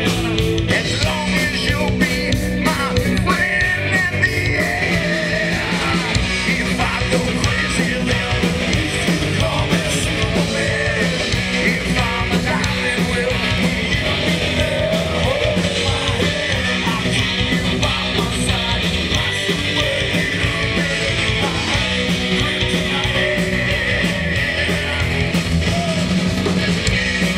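Live rock band playing a loud, driving song, with a steady drum beat and singing.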